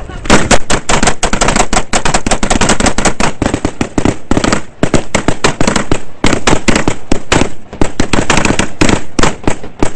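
Heavy close-range gunfire from several rifles, firing rapidly without a break, the shots coming many times a second and overlapping, opening with a loud volley just after the start.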